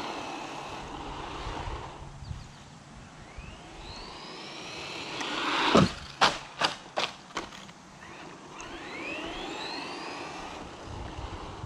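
Toy-grade RC car's electric motor whining, rising in pitch as it speeds up, twice. A quick run of sharp knocks comes about six to seven seconds in.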